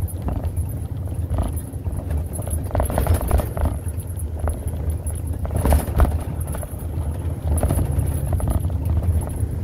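Steady low rumble of a vehicle driving, heard from inside the cab. Irregular knocks and rubbing sounds, with the loudest near the middle, come from the phone being handled.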